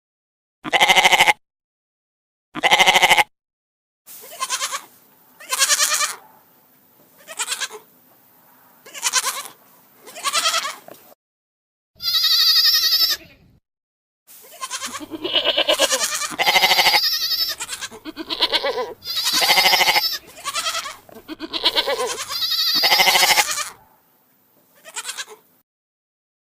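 Goat bleating over and over, a dozen or more separate calls, coming faster and closer together in the second half. One call about halfway through is higher and clearer in pitch.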